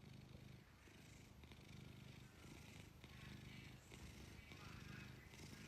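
A domestic cat purring quietly, the purr swelling and easing in a slow repeating rhythm with each breath.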